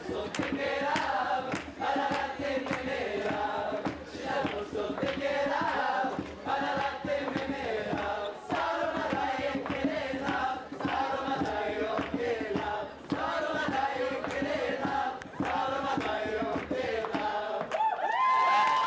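A group of young voices singing a Romani traditional song together, with hand clapping in rhythm. It grows loudest, with a high cry, just before the end.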